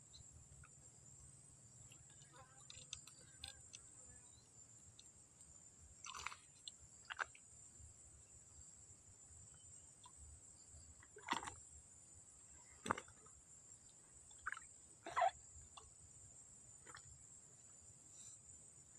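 Steady high-pitched insect chirring throughout, with a handful of short knocks and clicks scattered across the middle and latter part.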